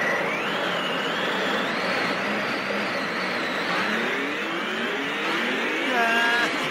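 Loud rushing, wind-like whoosh from an animated cartoon soundtrack, with a thin wavering whistle riding over it; a short pitched cry-like sound near the end.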